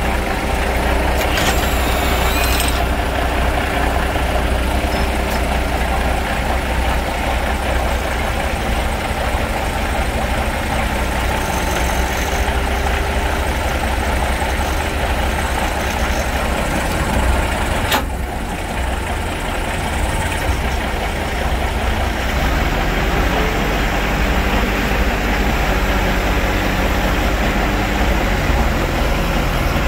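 Heavy diesel engine running steadily at idle, with one sharp metallic clank about eighteen seconds in.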